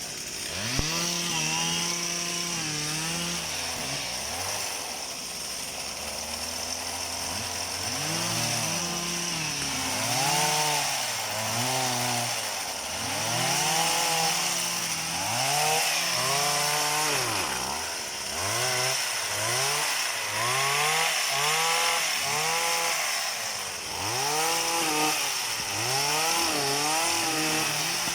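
Small engine of a motorized oil palm pruning machine, revved up and down over and over as it cuts fronds; the rise and fall in engine speed comes more quickly in the second half.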